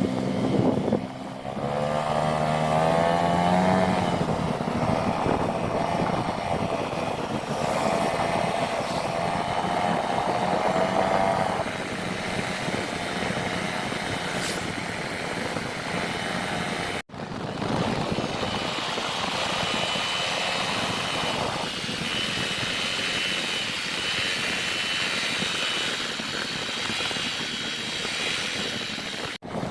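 Honda Click 125i single-cylinder scooter engine running while riding, with wind and road noise. The engine note rises as it accelerates a couple of seconds in, then holds. The sound cuts out briefly twice, about halfway through and near the end.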